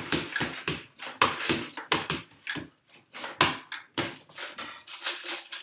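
Cutlery and kitchen utensils clattering and knocking in a quick, irregular run of strokes as a kitchen drawer is rummaged through for a fork.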